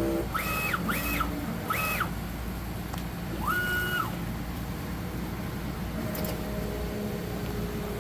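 Refinecolor RF-TS2 DTG printer running a nozzle check: its motors make four short whines in the first four seconds, each rising in pitch, holding and falling away as a move starts and stops. A faint steady hum follows from about six seconds in.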